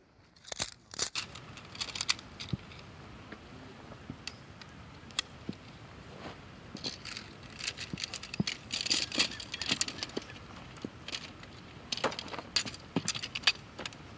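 Folding tent poles being unfolded and their sections snapped together: a run of light clicks and clacks with rattling, mixed with rustling of the tent fabric and dry grass.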